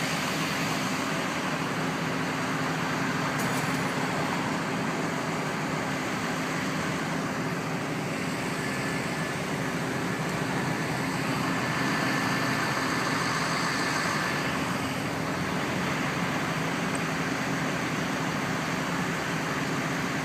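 Steady vehicle and engine noise with no clear change.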